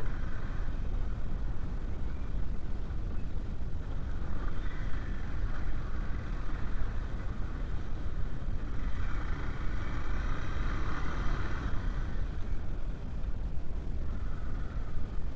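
Motorcycle being ridden along a rough concrete and dirt track: steady engine and wind noise with a deep rumble, swelling a little about four seconds in and again about nine seconds in.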